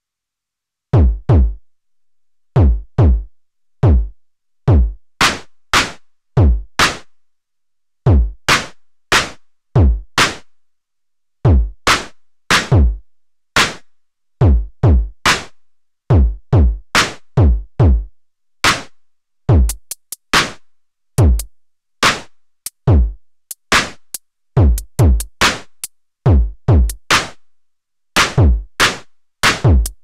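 Eurorack modular synthesizer drum voices triggered by three random gate streams, left unprocessed, play a simple irregular beat. Each hit is a short electronic drum sound that sweeps quickly down in pitch, and the hits are unevenly spaced with gaps of silence between them.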